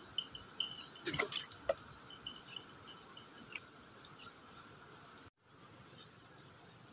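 Steady rush of a fast-flowing, swollen muddy river, with a few drips and small splashes about a second in. Faint insect chirping sounds over it in the first few seconds.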